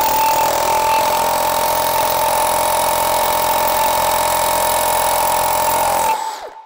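DeWalt SDS Max rotary hammer drilling a 5/8-inch hole into concrete: a steady motor whine over rapid hammering as the bit goes in easily under the tool's own weight. It stops about six seconds in and winds down.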